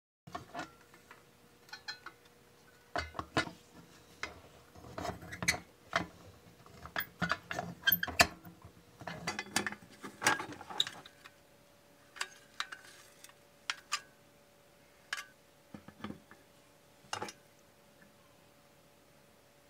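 Rusty heavy pressed-steel toy dump truck from the 1920s being handled and turned over: a string of metal clicks, knocks and rattles as its loose parts shift and it touches the table, busiest in the first half and thinning out until it stops.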